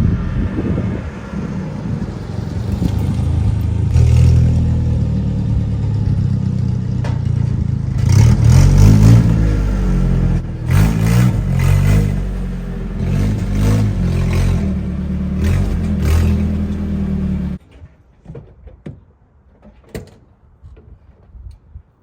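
A vehicle engine running and revved several times, its pitch rising and falling. It cuts off suddenly about three-quarters of the way through, leaving only a few faint clicks.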